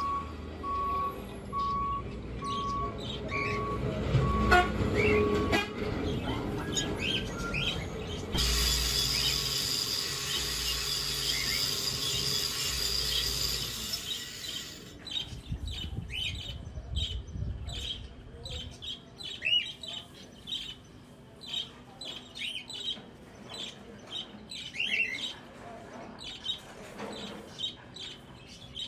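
Angle grinder running over a weld bead on steel square tube for about six seconds, from about eight seconds in, then stopping suddenly. After it, birds chirping over and over.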